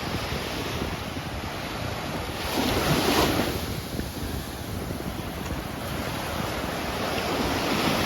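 Small waves washing onto a sandy beach, with wind buffeting the microphone. One wave breaks louder about three seconds in.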